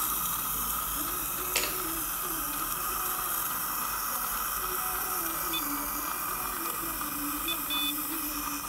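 Dental saliva ejector sucking steadily, a continuous hiss with a low wavering gurgle under it. A sharp click about a second and a half in, and a few short high beeps in the second half as the LED curing light is switched on.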